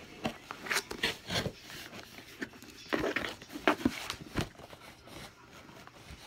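Cardboard shipping box being handled close to the microphone: irregular knocks, scrapes and rustles as it is lifted and turned, busiest about three to four seconds in.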